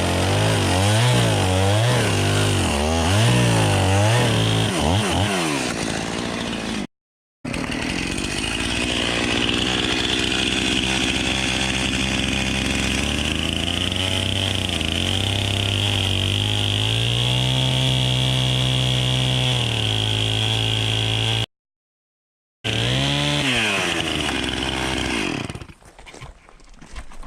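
Chainsaw engine revving up and down in quick bursts, then held at high revs for a long stretch, with two abrupt breaks in the sound. The revs drop away near the end.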